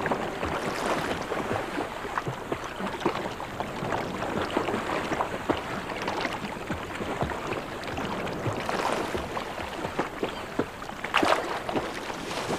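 Shallow seawater splashing and lapping over a sandy reef flat, with many small sharp splashes and a couple of louder splashes near the end.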